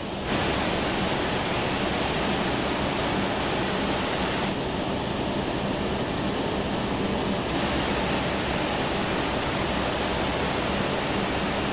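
Steady rushing aircraft noise around an Airbus A380 arriving at its gate, shifting abruptly in loudness and brightness a few times.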